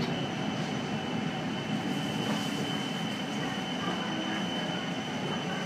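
BTS Skytrain carriage running, heard from inside: a steady rumble with a thin, steady high whine through it, as the train enters a station.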